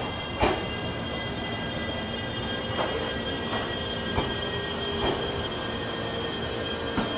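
JR Shikoku 7200 series electric train rolling slowly past along the platform, with steady high-pitched whining tones over a rumble and a few irregular clacks of wheels over the rail joints.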